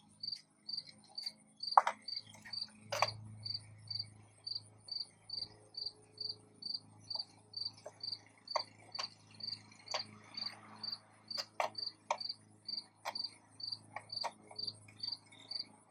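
A cricket chirping steadily, a little over two high chirps a second. Scattered sharp clicks and knocks of hand tools on metal come in over it while a bolt is checked for tightness, the loudest about two seconds in.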